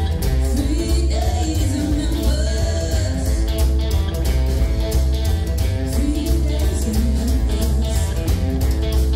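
Rockabilly band playing live: a woman sings two phrases over a red hollow-body electric guitar and an upright double bass, with a steady beat throughout.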